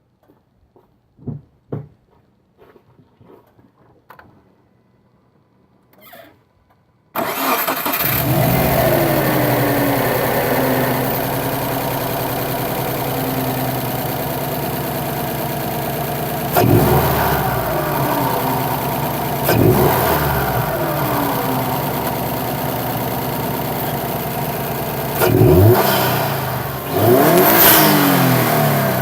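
A Subaru WRX's turbocharged flat-four engine, fitted with a Cobb turbo inlet pipe, starts suddenly about seven seconds in after a few faint clicks, settles into a steady idle, then is revved briefly four times, each rev rising and falling back to idle.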